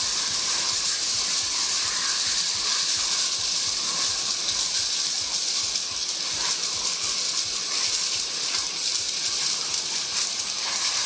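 Heavy rain pouring down steadily, a dense hiss loud enough to drown out a voice.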